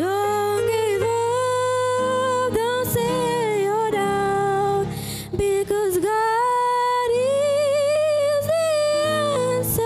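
A girl singing a solo song into a microphone, holding long notes with vibrato, over a soft instrumental accompaniment; she breaks briefly for a breath about halfway through.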